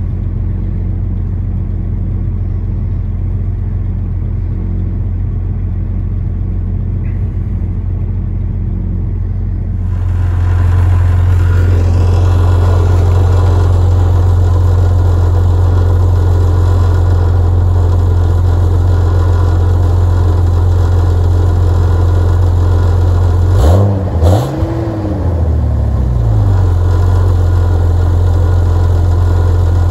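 Jeep Cherokee 4.0 inline-six idling steadily at about 1,000 rpm on a cold start. It is heard first from inside the cab, then louder at the tailpipe under the rear. About three-quarters of the way through there is a brief wavering of the engine note. The engine has a rattly exhaust, which the owner puts down to a leaking exhaust manifold gasket.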